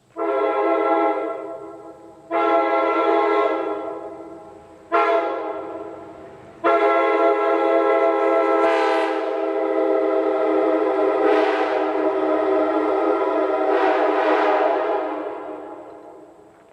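Multi-chime locomotive air horn blown in three short blasts, each fading as it sounds, then one long blast of about ten seconds that tails off near the end.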